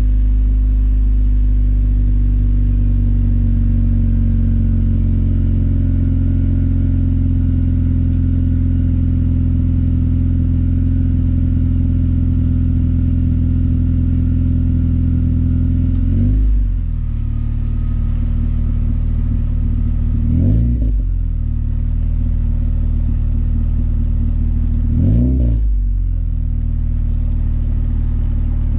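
A 2012–2015 Honda Civic Si's 2.4-litre four-cylinder engine heard through a K-Tuned 3-inch cat-back exhaust while driving: a steady low exhaust drone at cruise. Three brief swings in the engine note come in the second half.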